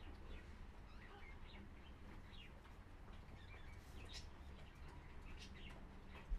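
Faint, scattered chirps of small birds over a low steady hum, with a single sharp knock near the end.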